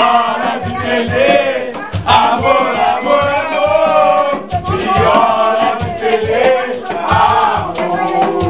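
A group of men singing samba loudly together over a steady hand-drum beat.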